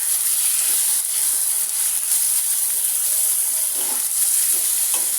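Tomatoes frying in hot oil in a karahi with onions and whole garam masala, sizzling with a steady hiss.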